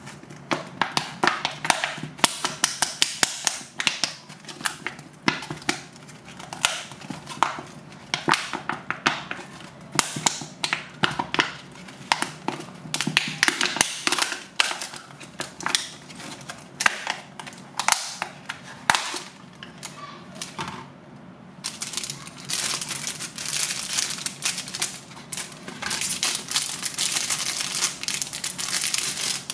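Plastic candy packaging crinkling and crackling as it is handled and opened, in quick irregular crackles, turning to denser, continuous crinkling over the last several seconds.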